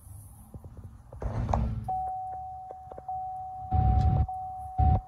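Several dull thumps and small knocks, with a steady high-pitched tone that starts about two seconds in and holds.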